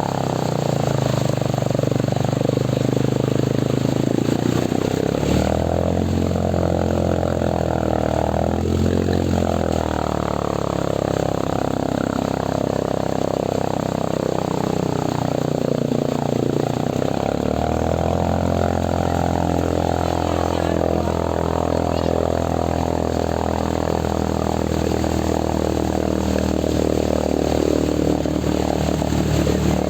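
An engine running steadily. Its pitch steps up about five seconds in, drops back near ten seconds, and rises again around seventeen seconds.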